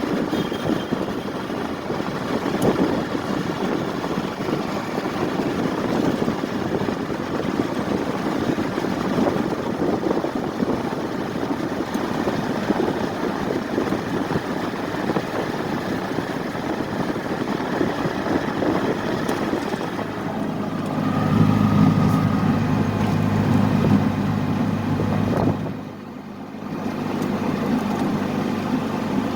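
Motor vehicles running, a steady rumbling traffic-like noise, joined about two-thirds of the way through by a steadier low engine hum.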